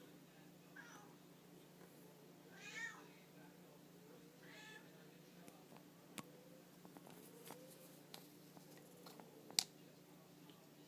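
Faint cat meows, three short calls in the first five seconds, followed by scattered small clicks, the loudest near the end, over a steady low hum.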